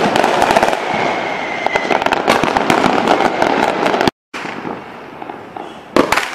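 Aerial fireworks: a dense barrage of shells bursting with continuous crackling and bangs. The sound cuts out completely for a moment after about four seconds, comes back quieter, and then a sharp loud burst comes near the end.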